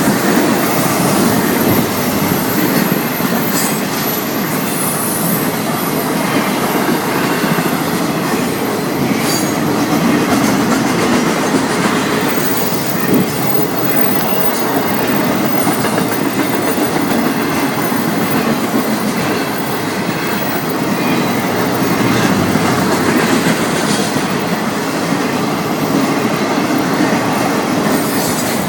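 Florida East Coast Railway freight train's cars rolling past: a steady rumble and rattle of steel wheels on rail, with a thin high wheel squeal near the start.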